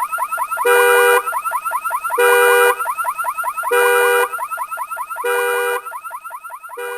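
Car anti-theft alarm sounding: a fast run of rising chirps broken about every second and a half by a steady half-second tone, the pattern repeating. It grows quieter over the last couple of seconds.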